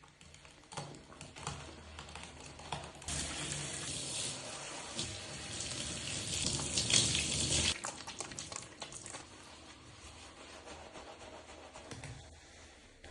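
Running water while hair is washed, a steady hiss that starts about three seconds in and stops after about five seconds. Before and after it come soft wet rubbing and crackling sounds of hands working the hair with a solid shampoo bar.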